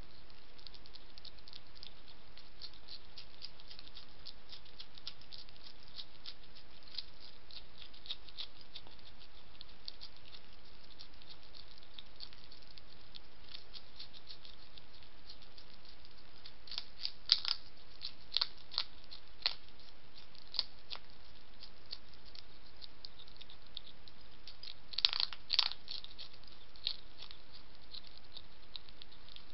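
Hedgehog chewing and crunching food from a dish: a continuous run of small, sharp crunching clicks over a steady hiss. Louder clusters of crunches come about two-thirds of the way through and again near the end.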